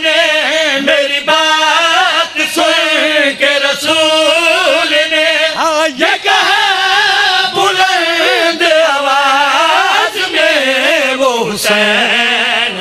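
A group of men chant a Shia devotional verse together into microphones, in long sung lines with a wavering vibrato.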